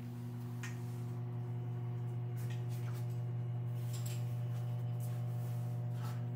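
Motorized display turntable running with a steady low hum that swells slightly and eases off, with a few faint ticks over it.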